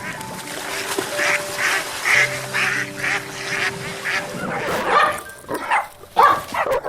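Ducks quacking over and over, about two calls a second, with background music of long held notes. A little past halfway the calls turn louder and more irregular, as another animal's calls take over.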